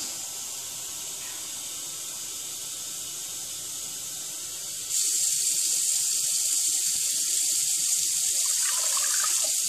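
Water running from a kitchen tap as a steady hiss, turning louder and fuller about five seconds in, while a measuring cup is filled for pouring into a saucepan.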